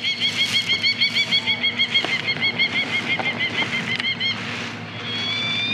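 Electronic bird-deterrent speaker playing bird calls: a rapid run of identical chirps, about six a second, that stops about four seconds in, followed near the end by longer rising whistled calls, over a steady low hum.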